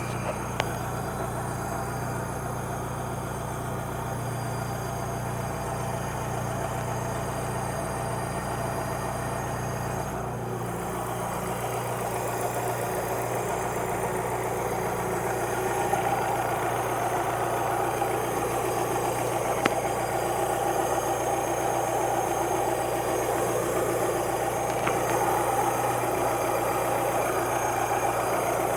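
Alfa Romeo 146 ti's 2.0-litre four-cylinder engine idling steadily, with a higher-pitched component that grows louder about halfway through. It is the strange noise this engine makes when restarted before fully cooled. It goes away once the engine is at normal temperature. The tensioners, bearings and timing belts have been checked and found fine.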